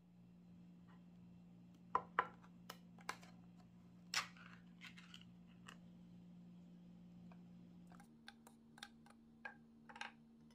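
Sharp metallic clicks and taps from handling a can of tuna, two loud ones about two seconds in and another just after four seconds. Near the end, a spoon taps and scrapes in a fine-mesh metal strainer as it presses the oil out of the tuna, over a faint steady hum.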